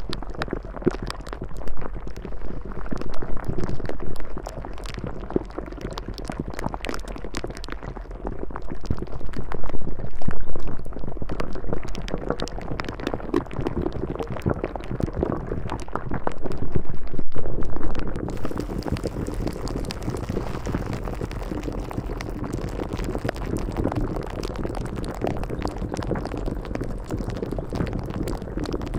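A continuous watery bubbling and sloshing sound that swells louder about every seven seconds, over a low steady hum.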